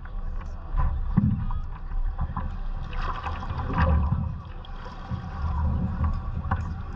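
Water sloshing and slapping against a stand-up paddleboard as it is paddled, heard from a camera mounted on the board: a low, uneven rumble with scattered knocks.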